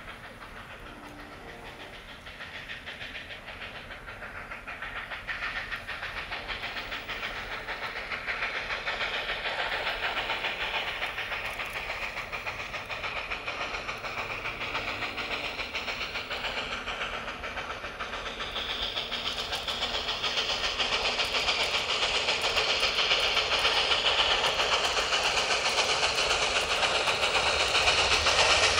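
Robert Dollar No. 3, a 2-6-2 tank steam locomotive, approaching with its train, getting steadily louder. A hiss of steam grows stronger in the last third.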